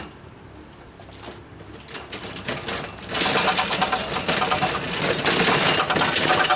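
A sharp click at the start, then the Evolution Rage 5-S table saw rolling on its folding wheeled stand over stone paving slabs. From about three seconds in, the wheels and the metal frame rattle loudly.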